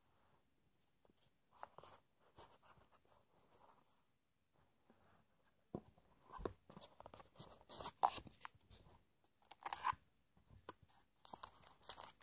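Faint rustling, scraping and small clicks of a cardboard box and its foam insert being handled, busiest from about halfway through, with a small plastic bag of spare parts crinkling near the end.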